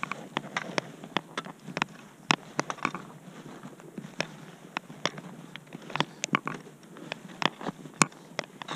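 A hiker's boots and trekking pole on a stony mountain path: irregular sharp clicks and crunches, about three a second, the sharpest one near the end.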